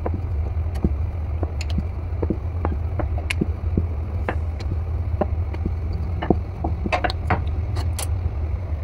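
Wooden rolling pin rolling dough on a wooden chakla, with scattered light clicks and knocks as the pin and board shift; a few sharper clicks near the end as a knife cuts the rolled dough. A steady low hum runs underneath.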